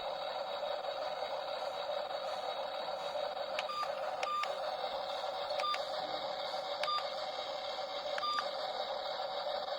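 Small electric gear motors of a remote-control toy backhoe loader whirring steadily, with about five short clicking beeps between about three and a half and eight and a half seconds in.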